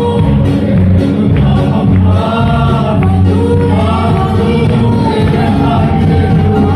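A church congregation singing a gospel song together, loud and unbroken, over instrumental accompaniment with a strong steady bass.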